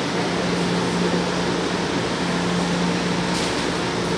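Steady hum of a São Paulo Metro Frota I train standing at the platform, a constant low drone from its running equipment, with a short hiss about three seconds in.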